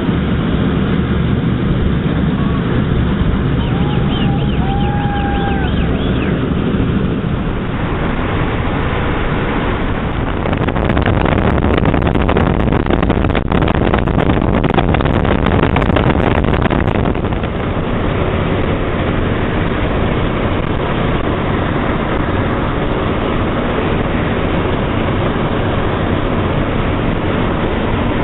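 B-17 bomber's four radial piston engines running with propellers turning: a loud, steady drone with a constant rush of noise.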